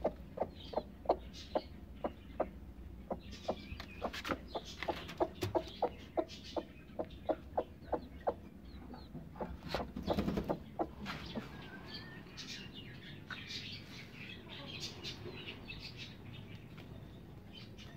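A broody hen sitting on her eggs clucking in a long run of short, sharp clucks, about three a second, for the first ten seconds or so. A brief louder noisy burst comes about ten seconds in, and the sounds turn quieter and sparser after it.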